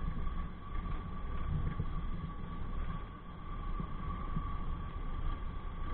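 Motorcycle engine running steadily while being ridden, with a constant low rumble, a thin steady whine and road and wind noise.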